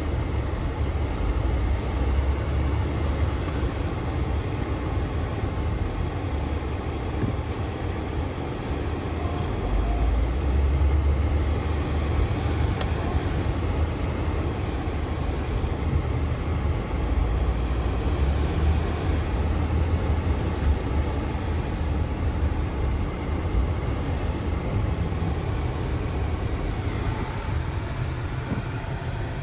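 1999 Toyota Camry engine running with the car standing still, a steady low rumble heard from inside the cabin.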